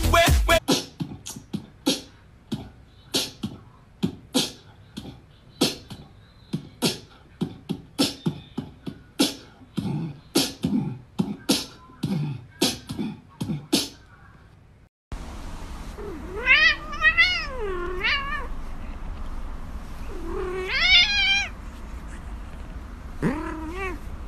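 Domestic cat meowing: drawn-out, wavering calls that glide up and down in pitch, two long ones and a shorter one near the end. Before the calls, for the first half, a string of sharp taps comes about two a second.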